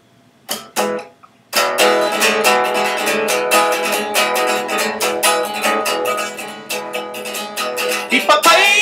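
Electric guitar strummed: two short strums, then a steady rhythm of chords from about a second and a half in, ending on a quick rising slide.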